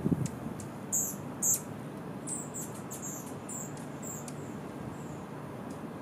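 Hummingbirds giving a series of very high, short squeaky chip notes, about seven in three seconds, the loudest two about a second in, over a steady low background rumble.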